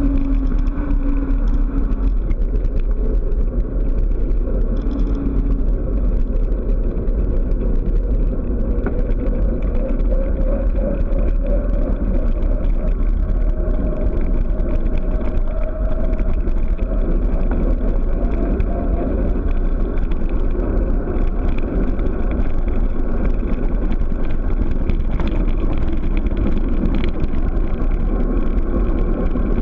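Wind buffeting the microphone of a camera on a bicycle on a fast downhill run, heard as a steady, loud low rumble.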